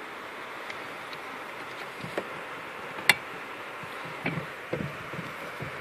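Scattered light clicks and knocks as hands work at the plastic clip holding a brake light switch under a pickup's dashboard, with one sharp click about three seconds in, over a steady hiss.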